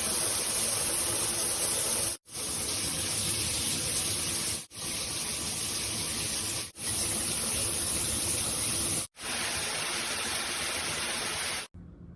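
Briout 5-setting handheld shower head spraying water steadily, shown in five stretches broken by short gaps, its spray settings being run through. The water cuts off near the end.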